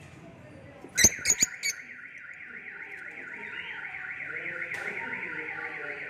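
Four sharp clicks, then an electronic alarm starts about a second in: a steady warbling tone, rising and falling about five times a second, of the kind a car alarm makes.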